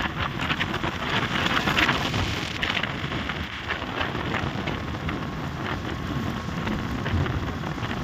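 Wind buffeting the microphone of a moving two-wheeler, with the rush of the road beneath, making a rough, crackling noise.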